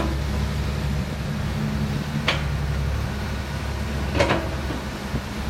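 Dump truck's engine running steadily with a low drone, with two short sharp clicks, about two and four seconds in.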